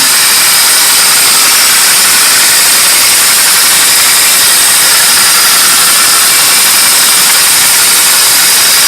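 Two tin pop-pop boats running, their flame-heated boilers making a steady, loud putter.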